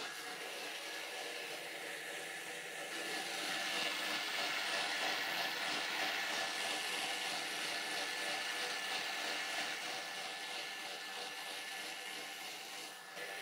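Thermomix TM6 mixing crêpe batter at speed 8: a steady motor whir from the blades spinning in the steel bowl, getting louder about three seconds in.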